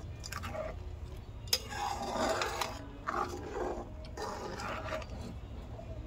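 Metal ladle stirring and scraping around a kadhai of simmering milk, with a sharp clink against the pan about a second and a half in, over a steady low hum.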